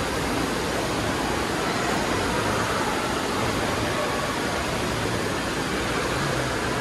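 Steady din of an indoor water park: rushing, splashing water from the wave pool mixed with distant voices, an even wash of noise with no single sound standing out.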